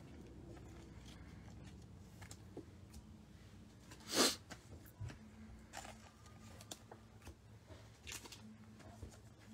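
Trading cards being handled and set down on a tabletop mat: faint slides and light taps, with one louder short swish about four seconds in.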